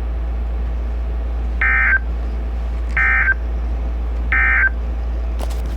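NOAA Weather Radio SAME end-of-message data tones: three short buzzy bursts of digital warble about a second and a half apart, marking the end of the broadcast. They sound over a steady low hum from the receiver, with a click near the end.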